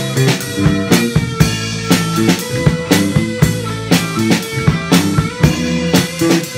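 A live rock band playing with the drum kit close up, its bass drum and snare beating steadily under electric guitars playing a stepped melodic line.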